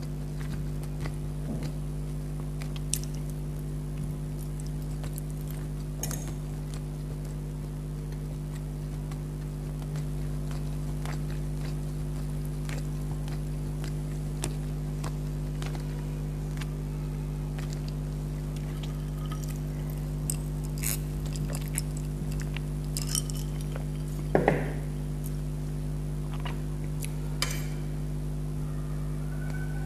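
Cutlery clinking and scraping against dinner plates now and then while someone eats, over a steady low hum. The clinks come in a cluster in the second half, the loudest about three-quarters of the way through.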